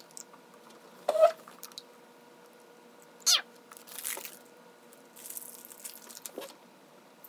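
Sped-up audio of a person eating candy: a few short squeaky vocal noises that slide in pitch, one rising about a second in and one falling past three seconds, then crinkling of a plastic candy wrapper around four seconds and again from about five to six and a half seconds.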